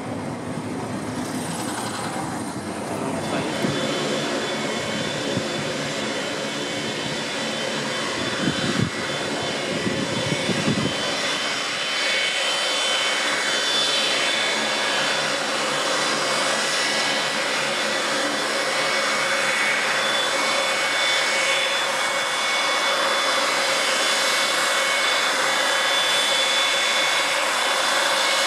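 A low, fluctuating rumble for about the first ten seconds, then the steady high whine of a NATO E-3A Sentry AWACS's four TF33 turbofan engines as the aircraft taxis at low power.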